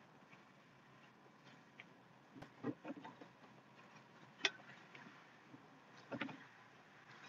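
Faint, steady running noise of a plow truck heard from inside its cab, with a few scattered clicks and knocks. The sharpest knock comes about four and a half seconds in.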